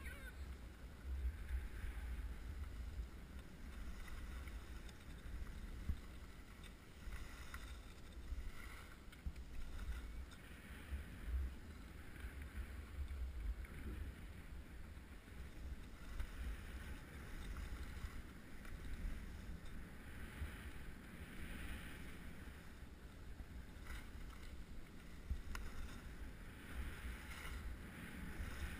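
Wind buffeting a ski-worn camera's microphone as a low rumble, with skis swishing and scraping over packed snow in swells every few seconds.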